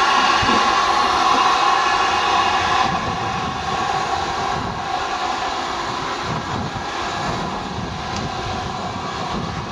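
1909 bi-cabine steam locomotive No. 31 standing in steam on a turntable: a steady hiss with faint ringing tones. The hiss eases a little about three seconds in.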